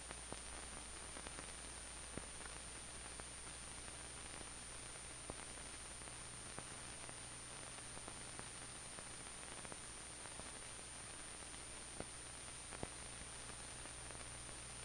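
Steady hiss and low hum of an old film soundtrack, with a thin steady high tone and a few faint scattered clicks.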